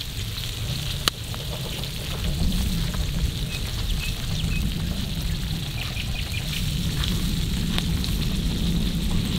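Ribeye steak, butter and vegetables sizzling on a cast-iron griddle over a wood fire, with scattered small pops and crackles and one sharp crack about a second in.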